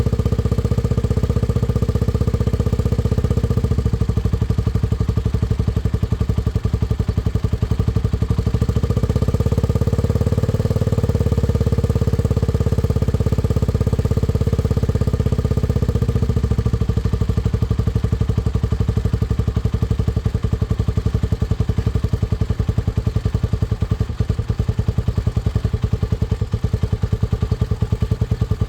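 Honda CBX125F's single-cylinder four-stroke RFVC DOHC engine running cold, held at slightly raised revs twice to keep it from bogging down and stalling, then settling to a lower, steady idle with an even pulse about sixteen seconds in.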